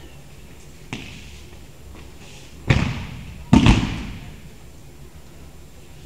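A judoka thrown onto judo mats: two heavy thuds with breakfall slaps about a second apart, echoing in a large sports hall, after a soft tap about a second in.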